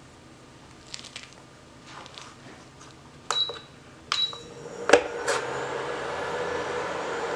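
Induction cooktop being switched on: two button presses, each with a short high beep, then clicks as it starts heating and a steady electrical hum from the hob under a small stainless saucepan of sesame oil.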